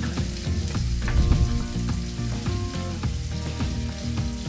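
Salmon fillets frying in hot oil in a frying pan, a steady sizzle with many small crackles and pops. The fish went in without the excess water wiped off, so the oil spits. Background music plays underneath.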